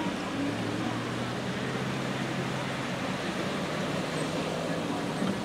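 Steady hiss of rain and wet ambience, with a low vehicle engine hum that fades out about three seconds in.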